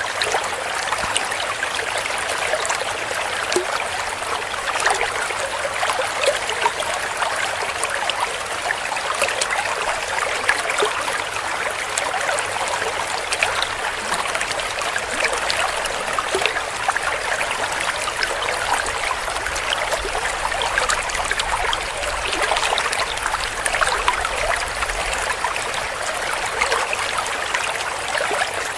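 A shallow stream of water flowing and splashing, a steady gurgling rush with small splashes and trickles and no pauses.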